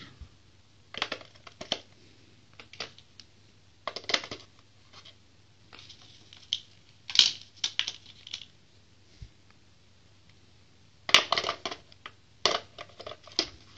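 Scattered clicks and plastic clatter of AA rechargeable batteries being pushed into the spring contacts of a plastic RC transmitter's battery compartment, with a clear plastic battery case being handled.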